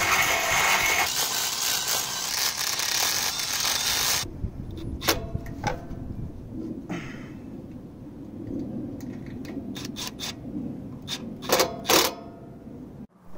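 Milwaukee cordless driver running steadily for about four seconds at the carburetor mount, then stopping. Small metallic clicks and clinks of parts being fitted by hand follow, with two sharp, louder clicks near the end.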